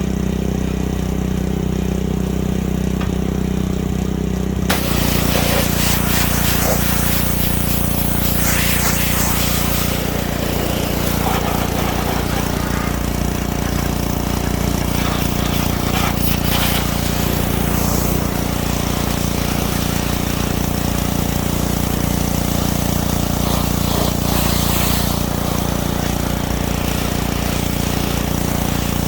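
Small gasoline engine of a pressure washer running steadily. About five seconds in the high-pressure spray starts with a loud hiss that keeps going, rising and falling as the jet plays over the hull.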